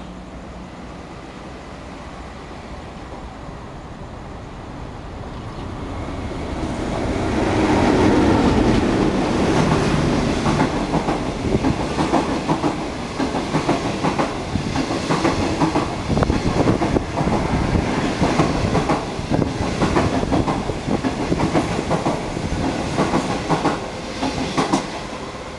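A DF11 diesel-electric locomotive approaching and passing at speed without stopping, its rumble swelling to a peak about eight seconds in. A long train of passenger coaches follows, rattling by with a rapid clatter of wheels on the rails, which eases off as the last coach goes by near the end.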